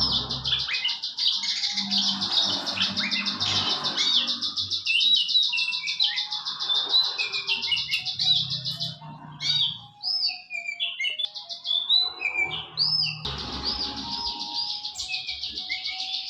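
A prinia (prenjak) singing its fast, rattling 'bren' trill for about nine seconds. It breaks into separate short chirping notes, then goes back to the rapid trill near the end.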